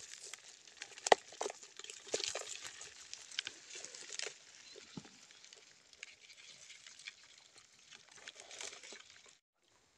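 Live small fish and crabs dropping and flapping in a plastic bucket as a mesh fish trap is shaken out over it: an irregular wet patter with sharp ticks, busiest in the first few seconds. It stops abruptly near the end.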